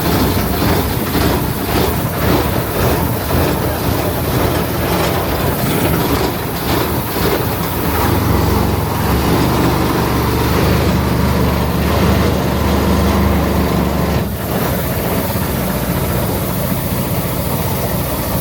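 Boat engine running loud and steady on its first start, its low drone growing stronger for several seconds midway. The engine sounds wrong to the owners, who blame a forgotten exhaust gasket and an exhaust pipe left without its hole.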